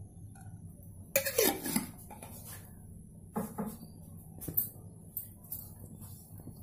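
Scattered light clinks and knocks of kitchenware around a pan on the stove, with a short cough-like vocal sound about a second in, the loudest thing heard, and a smaller one about three and a half seconds in.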